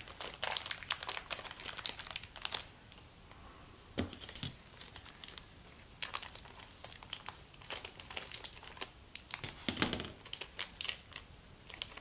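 Thin plastic blind bag crinkling and tearing in bursts as it is handled and ripped open by hand, with a couple of soft knocks about four seconds in.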